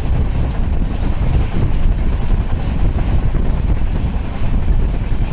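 Express train running at speed, heard from the sleeper coach: a steady low rumble with wind buffeting the microphone.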